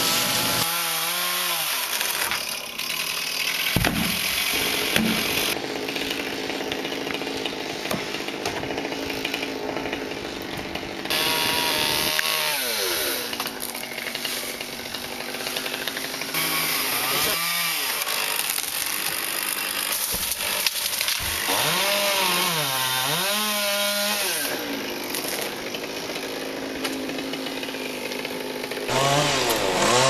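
Chainsaw cutting wood up in a tree, its engine running throughout and revving up and falling back several times.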